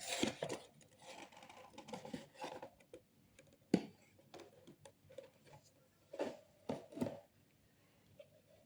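Faint handling noises of a GoPro camera and its packaging being turned over in the hands: light scraping, with a sharp plastic click near the middle and a couple of short knocks later.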